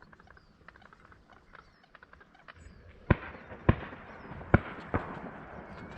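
Four shotgun shots in quick succession, starting about halfway in, each a sharp report with a short rumbling echo behind it.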